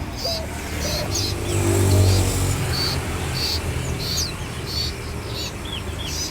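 Caged songbirds chirping: many short, high calls and small curving notes overlapping. Under them a low engine hum from a passing vehicle swells about two seconds in, then fades.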